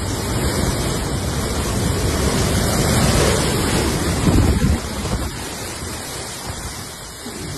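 Severe storm winds with driving rain, gusting hard against the phone's microphone in a loud, steady rush that peaks about four and a half seconds in and then eases a little.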